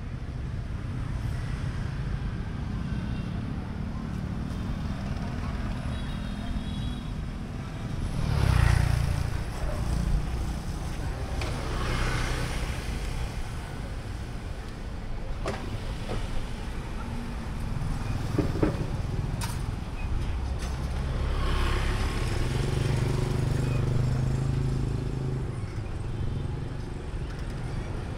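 City street traffic heard from a moving pedal cyclo: motorbikes and cars passing over a steady low rumble, swelling louder as vehicles go by about a third of the way in and again later on.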